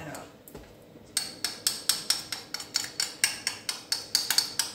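A spoon clinking against a bowl in a quick, even run of about five light strikes a second, starting about a second in, knocking flour out into a saucepan of melted butter for a roux.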